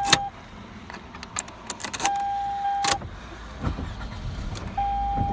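2005 Toyota Camry LE's warning chime sounding as a steady high beep in stretches of about a second, broken by sharp clicks and jingling from the key being worked in the ignition.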